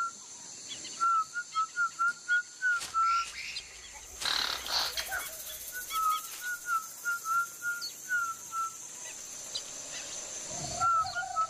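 Pirahã whistled speech: a man whistles phrases of short, quick notes, each gliding a little up or down around one high pitch. The phrases come in runs, with one starting about a second in, another about six seconds in, and a third near the end. The whistles carry words, here pointing out a monkey right overhead.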